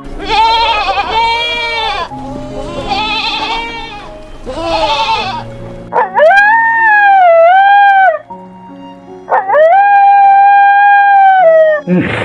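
An animal calling: three shorter pitched calls, then two long drawn-out calls that rise at the start and fall away at the end, over background music.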